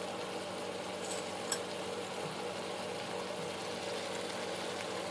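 Beef steak pieces in sauce simmering in a frying pan, a steady bubbling hiss with a steady hum underneath, and one light click about one and a half seconds in.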